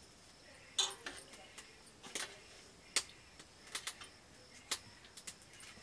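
Metal ladle clinking and scraping against a large metal cooking pot and a stainless steel plate while curry is ladled out: about half a dozen sharp clinks spread out, each a second or so apart.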